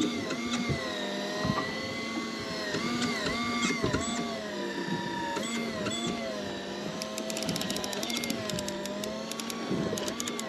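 Electric fishing reel motor winding in a hooked fish. Its whine sags in pitch and recovers again and again as the fish pulls against it. Spells of fast clicking come in the second half.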